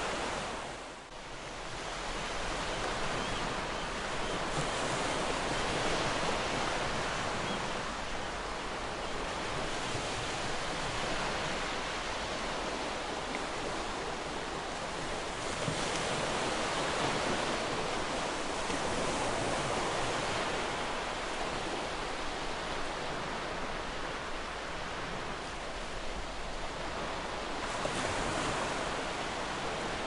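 Ocean waves washing onto a shore in a steady wash of surf that swells and eases every few seconds. The sound dips briefly about a second in.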